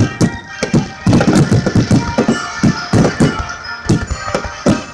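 Aerial fireworks bursting in a quick, irregular run of bangs, with music playing throughout.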